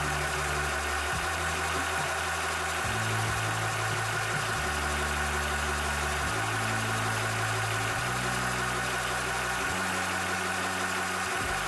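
Cobra high-pressure PCP air compressor (rated to 300 bar) running steadily while pumping: an even mechanical hum with a hiss and a steady tone in it.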